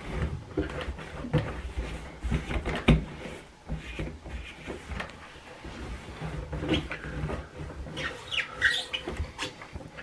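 Microfiber cloth wiping and rubbing around a front-load washer's rubber door gasket, with scattered knocks and handling noise and a few short high squeaks near the end.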